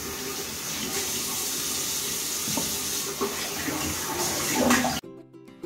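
Kitchen tap running water into the sink while hands wash something under the stream, with a few light knocks against the sink. The running water stops abruptly near the end.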